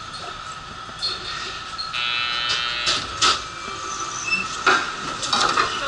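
Astram Line train's sliding doors opening at a station stop: a short buzzer sounds about two seconds in, then the doors knock and slide open, with several sharp clunks. A steady high hum runs underneath.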